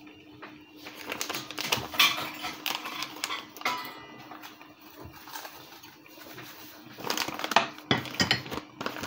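A utensil stirring pasta in sauce in a cooking pot, scraping and clinking against the pot in two spells, about a second in and again near the end, over a faint steady hum.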